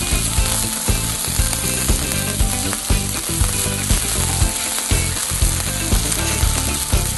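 Alpaca loin searing in a hot stainless steel frying pan over a gas flame: a steady sizzle as the outside is seared to a crust. A regular low beat, about two a second, runs under it.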